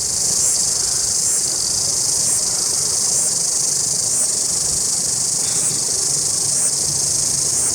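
Cicadas singing in a loud, steady, shrill chorus, swelling slightly about once a second.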